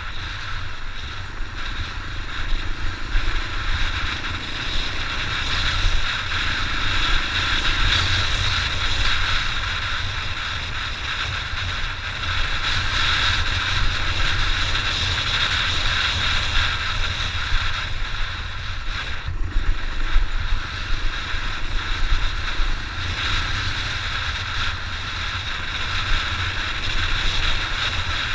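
Honda XR600 enduro motorcycle on the move, its single-cylinder four-stroke engine running steadily under wind buffeting on the microphone.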